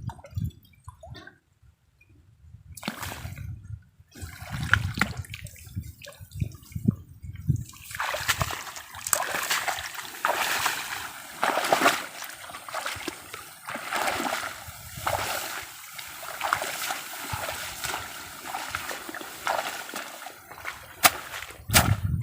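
Water splashing and sloshing in a small stream, irregular and sparse at first, then denser and busier from about eight seconds in.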